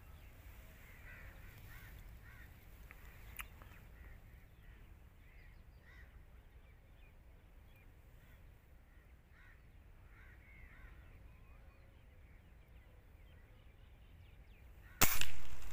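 Faint bird calls over light wind, then near the end a single sharp shot from a Hatsan Striker Edge break-barrel spring-piston air rifle.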